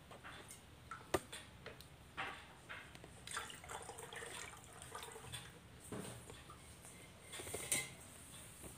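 Water scooped from a pot with a small plastic cup and poured through a plastic funnel into a plastic bottle, splashing and trickling, with a sharp knock about a second in and another clatter near the end as the cup strikes the pot.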